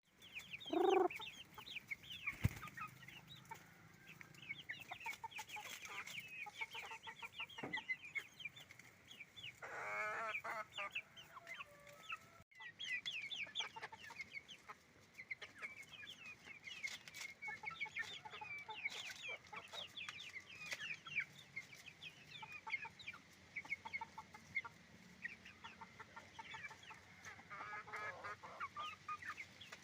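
A flock of farm chickens clucking and calling, with dense, high, overlapping chirps throughout. A few longer, louder calls stand out near the start, about a third of the way in and near the end.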